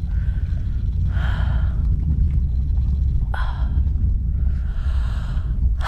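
A person's heavy breaths, three or four audible exhalations without voice, after a strenuous shoulder stretch. Under them runs a steady low rumble of wind buffeting the microphone.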